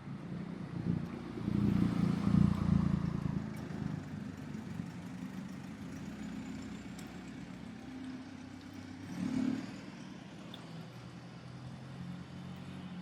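Street traffic passing close by. A vehicle goes by loudest about two seconds in and a second one briefly around nine and a half seconds in, with a steady engine hum between.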